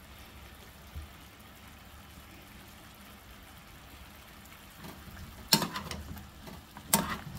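Eggplant chunks frying in oil in a frying pan, a faint steady sizzle. About five and a half seconds in, a spatula starts stirring them, with two sharp scrapes against the pan.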